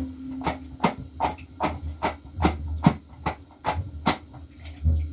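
A regular series of sharp knocks, about two and a half a second, over a steady low rumble.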